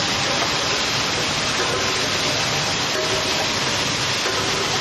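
Straight-line single-side labeling machine running, a steady, even hiss-like noise with no distinct beats or knocks.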